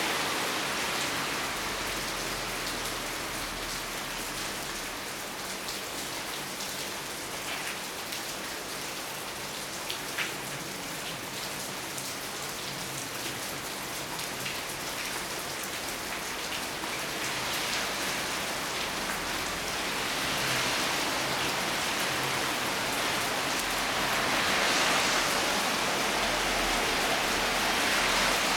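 Steady rain falling, a continuous hiss dotted with the ticks of individual drops. It swells heavier twice in the latter half. One sharper tick comes about ten seconds in.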